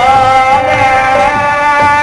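Bengali devotional song (bhajan): a voice holds one long note, sliding into it at the start, over tabla.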